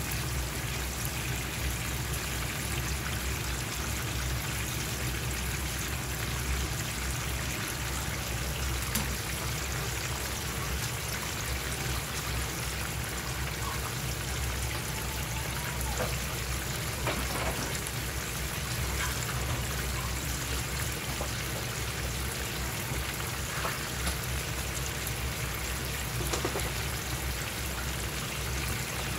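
Soy-based sauce boiling hard in a frying pan around rolled pork belly as it reduces: a steady bubbling sizzle with an occasional small pop, over a low hum.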